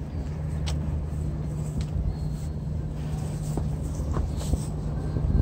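Steady low rumble of outdoor ambience, with a few faint light clicks scattered through.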